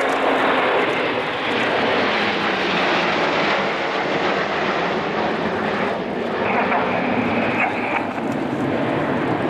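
Military jet engine running with a loud, steady rushing noise. A higher steady whine sits on top for about a second and a half, two-thirds of the way in.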